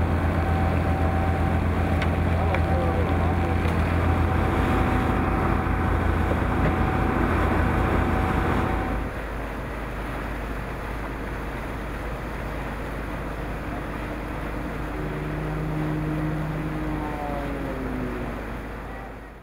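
Motorboat engine running with a steady low hum. About halfway through it drops to a quieter hum, and near the end a few falling tones are heard.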